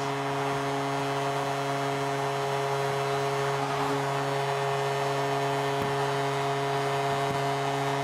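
Arena goal horn sounding one long, unbroken note over a cheering home crowd, the signal of a home-team goal.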